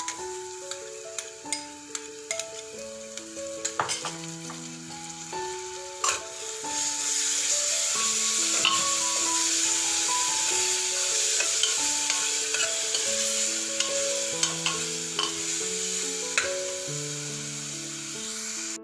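Ginger-garlic-green chilli paste and onion sizzling in hot oil in an aluminium pressure cooker, stirred with a steel spoon that clinks and scrapes on the pot; the sizzle grows louder about six seconds in. A melody of held notes plays in the background.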